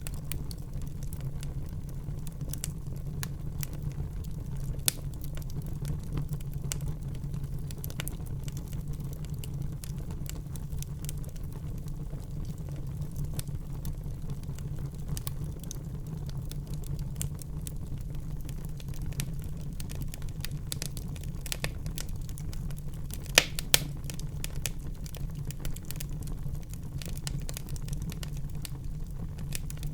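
Wood fire burning in a fireplace: a steady low rumble of flames with frequent small crackles, and two louder pops in quick succession about two-thirds of the way through.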